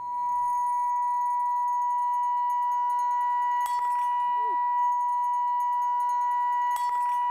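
Loudspeaker driver playing a loud, steady sine tone of about 975 Hz, the wine glass's resonant frequency, turned up to make the glass flex until it cracks. A brief crackle breaks through the tone about halfway and again near the end.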